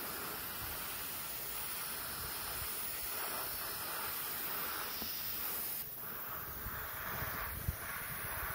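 Aerosol spray can hissing steadily as it sprays nitrocellulose lacquer for a gloss coat.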